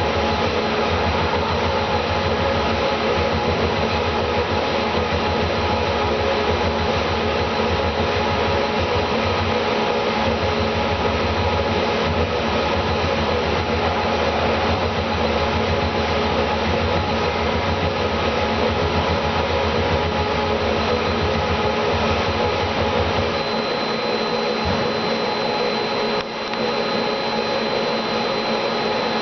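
A machine's motor running steadily with a low pulsing rumble, which drops away about three-quarters of the way through while the rest of the machine noise carries on.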